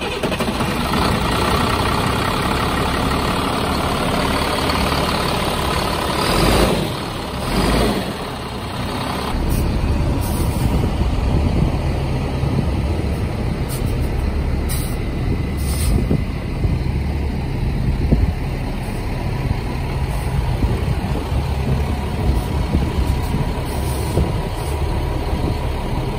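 2007 Freightliner M2 Business Class dump truck's diesel engine idling steadily just after a start. Two short bursts of hiss come about six and a half and seven and a half seconds in.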